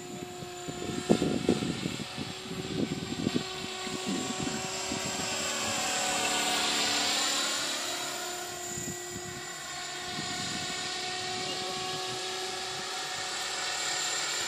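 Mikado Logo 400 electric RC helicopter in flight, the steady whine of its motor and rotor blades. The sound swells as it passes close about six to eight seconds in, then eases off again.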